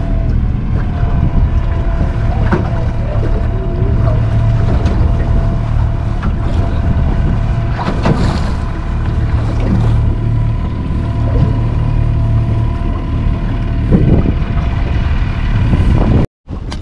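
Boat motor running steadily with a constant low hum, wind buffeting the microphone, and a few brief knocks. The sound cuts out abruptly for a moment near the end.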